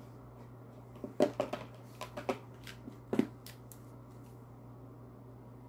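Oracle cards being handled: a quick cluster of short flicks and taps starting about a second in and ending about three seconds in, over a steady low hum.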